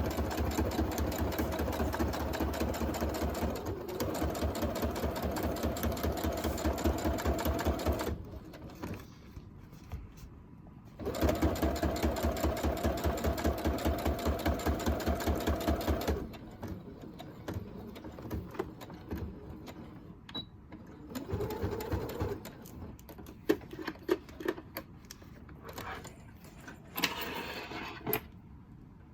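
Sewing machine stitching the side seam of a faux leather envelope in two runs, the first about eight seconds and the second about five, with a short stop between them. After the machine stops, scattered clicks and handling sounds.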